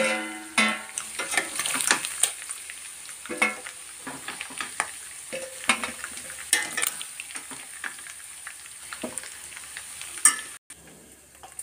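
Chicken pieces frying in hot oil in a steel kadai, a steady sizzle, with repeated clinks and scrapes of a perforated steel spoon against the pan and a steel bowl as the pieces are lifted out. A short metallic ring at the very start, and the sound cuts out briefly near the end.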